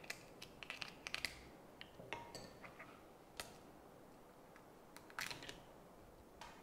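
Faint, scattered cracks and clicks of steamed rice-field crab shells being broken and pried apart by hand, with a cluster in the first second and a half and another about five seconds in.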